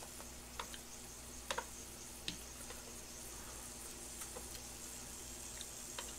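Pork belly sizzling steadily on an electric grill pan, with a few light clicks of chopsticks against the pan, the loudest pair about a second and a half in.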